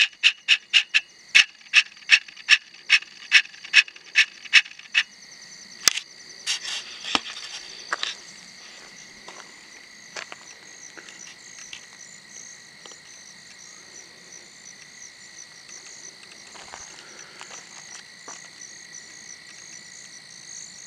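Night chorus of insects and frogs: steady high-pitched trilling throughout, with a loud run of sharp chirps, about two or three a second, that stops about five seconds in. A few scattered clicks follow between six and eight seconds.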